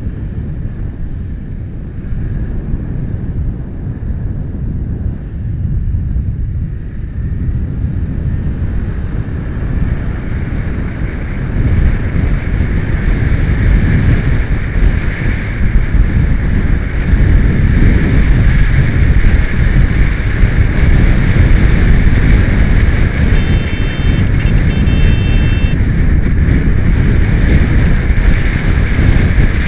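Wind rushing over an action camera's built-in microphone, over the running engine of a Yamaha motorcycle being ridden through city traffic. It gets louder about a third of the way in as the bike picks up speed on open road. A short high-pitched tone is heard about three-quarters of the way through.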